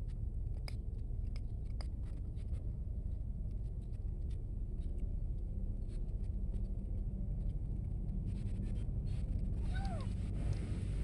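Cats crunching dry kibble in small sharp clicks, over a steady low background rumble that grows a little noisier near the end. Near the end comes one short call that falls in pitch.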